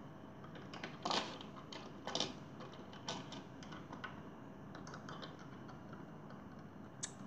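Scattered small plastic clicks and taps as a Lego minifigure and its accessory are moved around and knocked against the bricks of a Lego toy house, a few louder taps among them.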